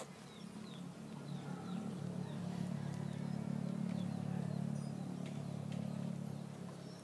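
A motor vehicle's engine drone that grows louder over a few seconds and then fades, as a vehicle passing by. A bird gives a few short falling chirps in the first second or so.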